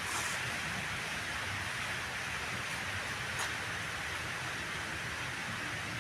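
Power trowel's single-cylinder petrol engine running steadily, heard as an even mechanical hiss.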